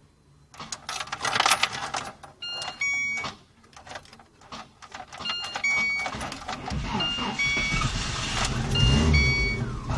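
Car being started after a starter-solenoid repair. Keys rattle and a few short electronic beeps sound, then about seven seconds in the engine starts and runs, its speed wavering up and down.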